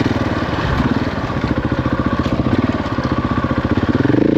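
Husqvarna 701's single-cylinder engine running as the motorcycle is ridden along a trail, a steady pulsing note that rises in pitch near the end as the throttle opens.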